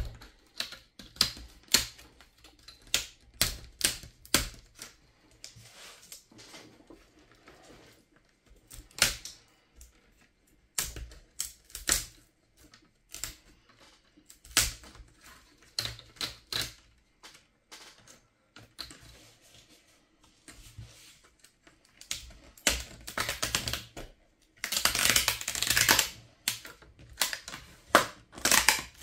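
Irregular clicks, taps and knocks of a Dell Latitude 3500 laptop being taken apart by hand: plastic casing and small parts clicking and knocking against each other and the work surface. A denser burst of noise lasting about a second and a half comes near the end.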